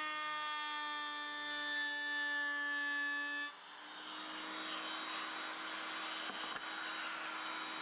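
A woodworking power tool's electric motor running with a steady whine made of several tones. About three and a half seconds in the whine cuts off suddenly, leaving a steady hum with a hiss and a few light clicks.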